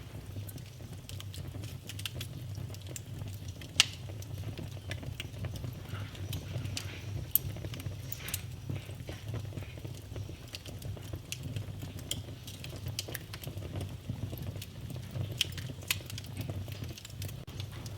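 Wood fire in a fireplace crackling, with irregular sharp pops over a steady low rumble of the flames. The loudest pop comes about four seconds in.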